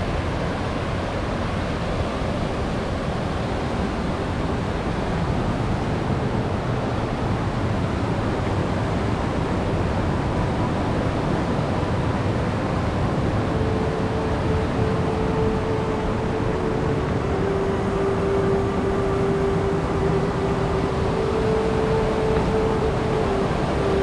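Waterfall: a steady rush of falling water. Faint steady tones sit over it in the second half.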